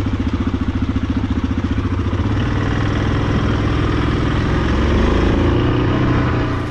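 Yamaha Grizzly 700 ATV's single-cylinder engine running with a fast pulsing exhaust note. About two seconds in it revs up, rising in pitch as the machine pulls away, and the sound drops away abruptly near the end.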